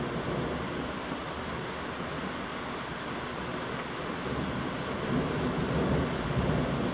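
Heavy thunderstorm downpour: a steady rush of rain, with a low rumble growing louder about five seconds in.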